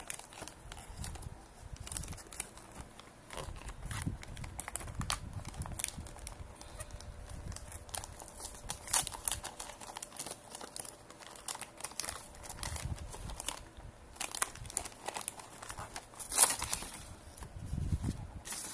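Paperboard box and plastic snack wrapper being opened and handled by hand: intermittent crinkling and rustling with scattered light taps and knocks, a little louder about two-thirds of the way through.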